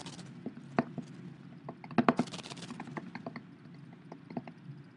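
Scattered light clicks and taps over a low steady room hum, with a small cluster of clicks and a brief rustle about two seconds in.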